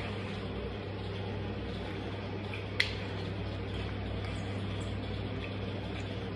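Steady low hum and hiss of a small tiled room, broken once about three seconds in by a single sharp tap of a canvas sneaker sole against the tile floor beside crushed orange halves.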